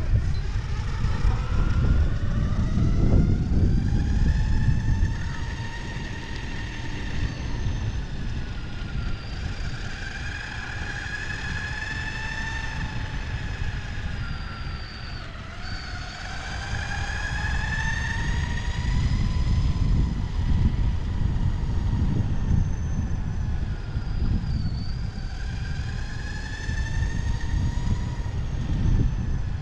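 Skateboard rolling over pavement: a steady rough rumble from the wheels, which swells and eases. Over it runs a whine that slowly rises and falls in pitch, dipping twice.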